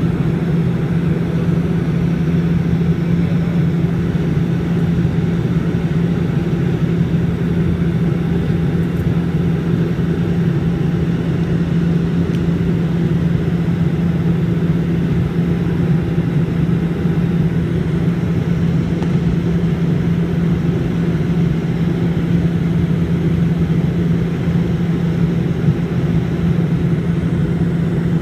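Cabin noise inside a Bombardier Dash 8 Q400 turboprop in flight: the steady drone of its Pratt & Whitney PW150A engines and six-bladed propellers, with a strong low hum that holds even throughout.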